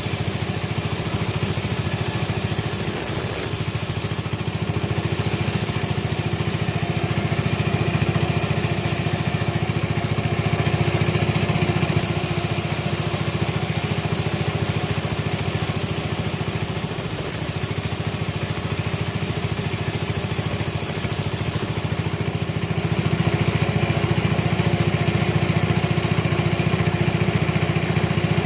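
Sawmill machinery running steadily with a continuous engine-like drone and some hiss, getting a little louder about two-thirds of the way through.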